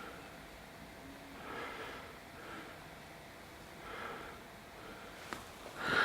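Quiet breathing through the nose close to the microphone: a few soft breaths a second or two apart, with a small click about five seconds in.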